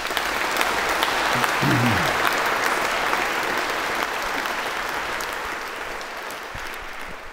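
Audience applauding: dense, steady clapping from a large seated crowd, slowly tapering off over the last few seconds.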